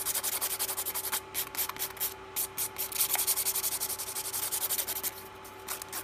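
A hand nail file rasping in quick back-and-forth strokes across an acrylic dip-powder nail to shape it, with a couple of brief pauses.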